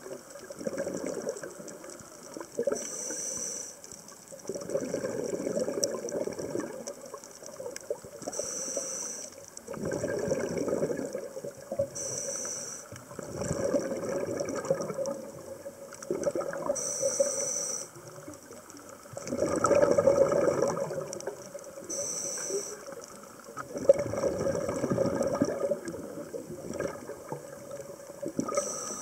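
A scuba diver breathing through a regulator underwater: a short hiss on each inhalation, then a longer rush of bubbles on each exhalation, about six breaths repeating evenly roughly every five seconds.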